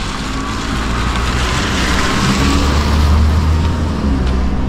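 A motor vehicle passing close by on the street, its low engine hum and tyre noise swelling to a peak partway through and then fading.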